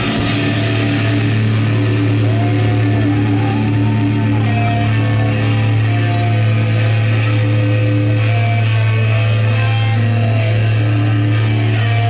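Heavy metal band playing live, loud and dense: distorted electric guitars over a steady held low note, with a melody line above that bends up and down in pitch.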